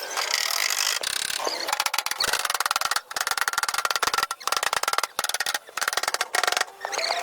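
A fast, uneven run of sharp knocks or taps, broken by a few brief pauses.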